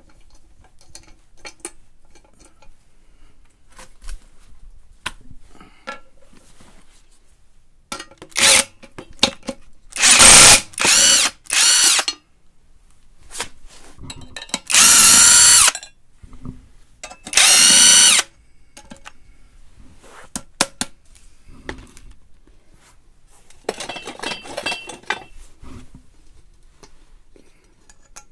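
Cordless 1/2-inch impact wrench (Tacklife 20-volt) running in repeated short bursts of about a second, the longest about a second and a half, spinning off loosely tightened bolts. A fainter run comes near the end, with light clicks and clinks between the runs.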